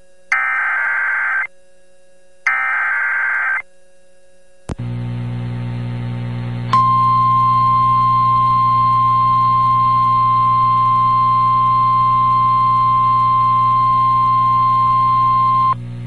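NOAA Weather Radio emergency alert: the last two bursts of the SAME digital header, screechy data tones of about a second each, then a low hum. About seven seconds in, the steady 1050 Hz warning alarm tone starts and holds for about nine seconds, announcing a new severe thunderstorm warning broadcast.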